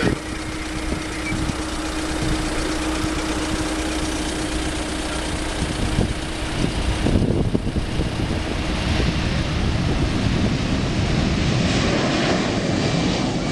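Jet noise from a Boeing 747-400 freighter's four engines at takeoff thrust: a steady rushing noise that turns into a heavier low rumble about seven seconds in as the aircraft rotates and lifts off.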